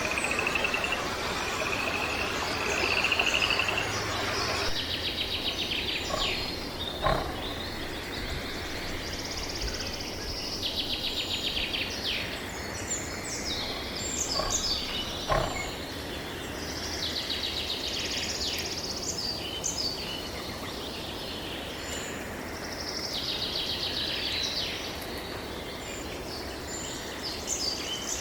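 Small birds singing: fast, high trills repeated every few seconds over a background hiss that drops away about four and a half seconds in, with a couple of sharp clicks.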